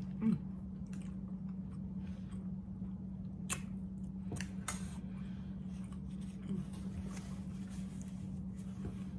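Close-up eating sounds: wet chewing and mouth noises, with a few sharp clicks about three and a half to five seconds in and a paper napkin rustling near the end. A steady low hum runs underneath.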